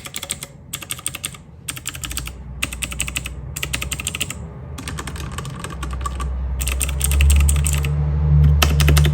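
Typing on a cheap 60% mechanical keyboard with Otemu Box switches: about eight short bursts of rapid key clicks with brief pauses between them. A low hum underneath grows louder in the last few seconds.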